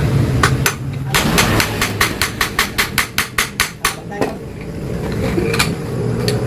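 Rapid, even hammer blows on the metal shell of a Yamaha RX-King motorcycle exhaust muffler as it is being opened up, about five strikes a second for roughly three seconds, followed by a few single knocks. A low steady hum runs underneath, dropping away while the hammering goes on and coming back near the end.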